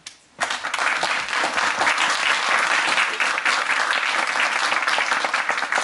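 Audience applauding after a solo guitar piece. The clapping breaks out suddenly about half a second in and holds steady and full.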